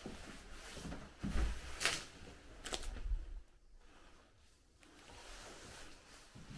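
Footsteps and scuffing of someone walking through a derelict building, with a few dull thuds early on and two sharp clicks or scrapes about two and three seconds in.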